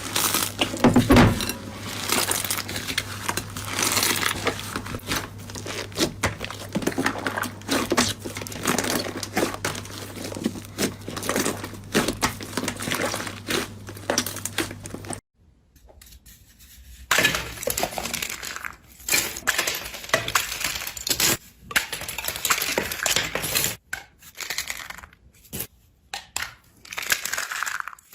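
Slime being squeezed and pressed by hand, with dense crackling and popping clicks. About halfway through the sound cuts off briefly and a new stretch of crackling starts without the low hum underneath.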